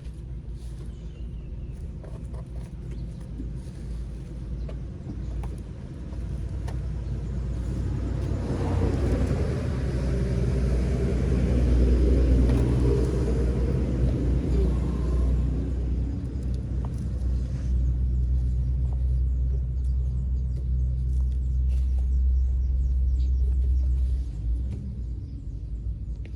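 Low, steady engine rumble. It grows louder through the middle and drops off sharply near the end.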